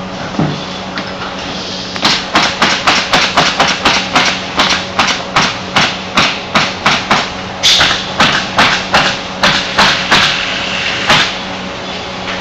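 Pneumatic fastening guns firing in quick succession into OSB roof decking, about three shots a second. The shots start about two seconds in and stop about a second before the end, with a short air hiss midway, over a steady factory hum.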